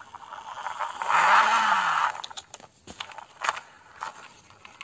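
Plastic toy crawler excavator pushed by hand across concrete: its plastic tracks scrape and roll for about a second, then come several sharp plastic clicks and knocks.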